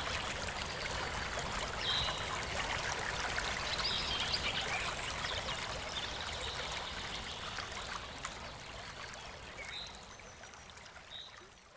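Pork and sauerkraut goulash simmering in a frying pan: a steady crackling bubbling with scattered small pops, fading out near the end.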